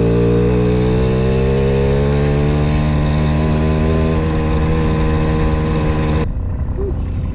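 Puch Maxi moped's 50cc two-stroke single-cylinder engine running hard under way, its pitch sagging slowly, with wind rush on the microphone. The sound cuts off suddenly about six seconds in, giving way to a quieter engine and wind sound.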